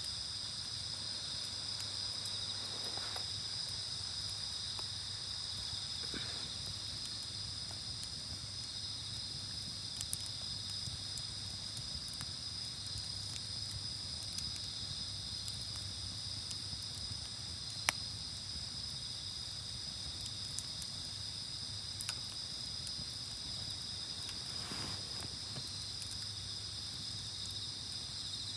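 Insects trilling steadily in high, unbroken tones, with a few sharp pops from the burning campfire wood.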